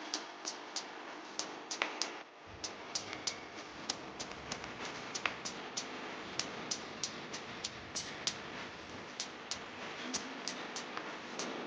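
Food cooking in a pan: irregular sharp pops and crackles, about three or four a second, over a steady hiss.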